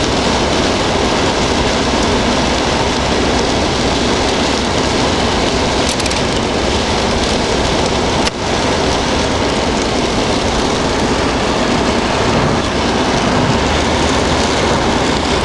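Steady rush of a moving car's tyres on a rain-soaked, flooded road, with rain, heard from inside the car. There is a brief dip in the noise about eight seconds in.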